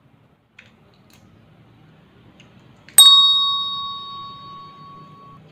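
A single loud metallic strike about three seconds in, ringing out in a clear bell-like tone that fades over about two seconds. A few faint clicks come before it.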